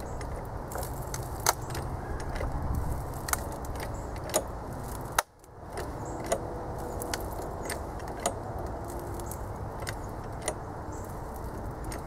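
Homemade hydraulic hose crimper worked slowly by a 30-ton bottle jack, giving irregular metallic clicks and clinks as the die closes on a hose fitting. One sharper click comes about five seconds in.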